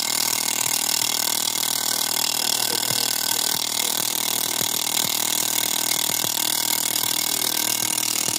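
Fuel injector test bench running: its pump hums and the injectors fire and spray test fluid, a steady loud hiss with faint ticking.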